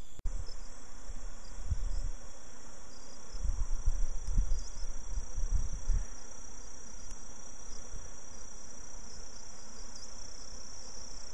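Steady, high-pitched insect drone with the buzzing of a strong feral colony of Africanized honey bees at their nest in a tree trunk. A low, uneven rumble on the microphone comes and goes between about one and a half and six seconds in and is the loudest part.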